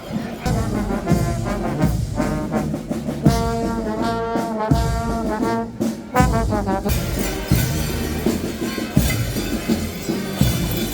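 Brass music with a drumbeat: horns play a tune over regular drum strikes.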